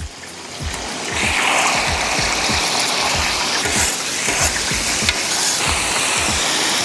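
Squid skewers sizzling on a hot flat iron griddle as sauce is brushed over them and they are turned with a spatula; the sizzle swells about a second in as the sauce hits the hot plate, then holds steady.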